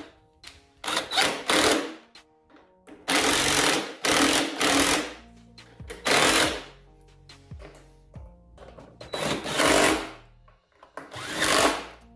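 Cordless impact driver hammering in short bursts as it runs down and tightens the moped's 12 mm seat bolts. There are about six bursts of half a second to a second each, with pauses between them.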